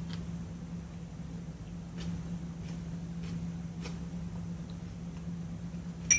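Steady low hum of a ship's cabin, with a few faint soft clicks. Just before the end comes a single short clink with a bright ringing tone, like cutlery touching a dish.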